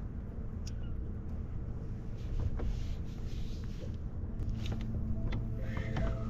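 Low, uneven wind rumble on the microphone, with a soft hiss in the middle and near the end and a few faint clicks.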